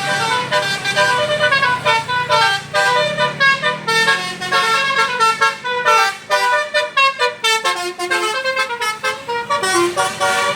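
Telolet basuri musical bus horn playing a fast melody of short notes that jump up and down in pitch.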